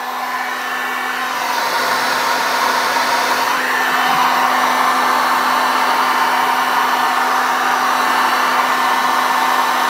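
Heat gun just switched on, its motor coming up to speed, then running steadily: a rush of hot air over a constant motor hum, used to melt down the frayed edges of leather.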